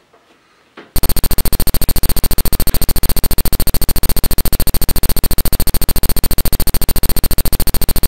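Loud, harsh electronic buzz that starts suddenly about a second in and pulses rapidly and evenly, with a steady high whine on top: the psychophony (EVP) recording being played.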